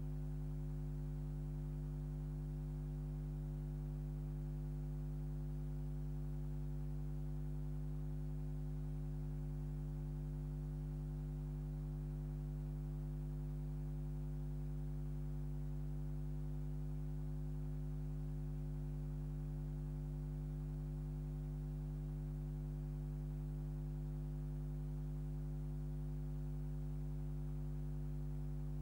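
Steady electrical hum, a strong low tone with several evenly spaced higher tones above it, unchanging in pitch and level; nothing else is heard.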